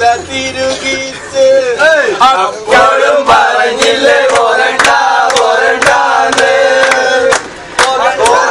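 A group of men singing and chanting together loudly, with hand claps keeping a beat about twice a second from about three seconds in.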